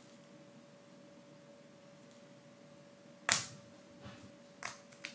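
Thin laser-cut plywood pieces of a wooden mechanical locomotive kit being handled: one sharp wooden snap about three seconds in, then three lighter clicks in the last two seconds.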